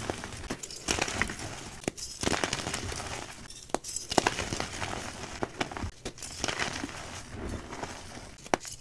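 Reformed gym chalk crushed and crumbled between the fingers: dry, powdery crunching with several sharp snaps as the pressed blocks break, the loudest about four seconds in.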